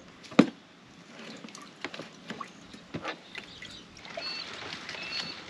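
Knife and hands working raw venison on a folding camp table: one sharp knock about half a second in, then scattered light clicks and taps as the meat is cut.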